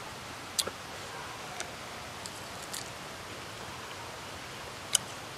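Mouth sounds of a person chewing green tamarind pods: a few sharp crunches and clicks spread out over a steady hiss, the loudest near the end.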